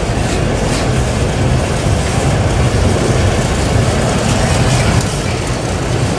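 Freight train of autorack cars rolling past close by: a steady loud rumble of steel wheels on the rails, with occasional faint clicks.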